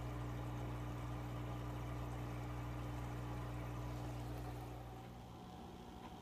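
Steady low electric hum from a running motor or appliance, which drops away about five seconds in, leaving a fainter background hiss.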